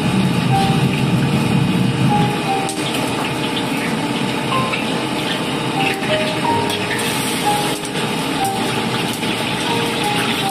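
Steady roar of a gas wok burner under a wok of very hot frying oil, with the oil sizzling and bubbling. By the end pieces of tofu are frying in the oil.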